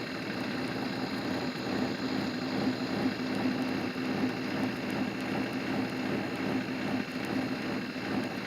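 Steady, even hum of a vehicle engine idling, with a constant low drone and no change in pitch.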